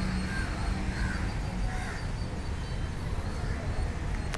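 Crows cawing a few times in the first couple of seconds, over a steady low rumble of city traffic.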